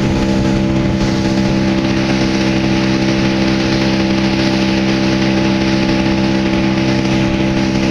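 A tour boat's engine running steadily at speed, a constant drone, with the rush of water spraying off the hull.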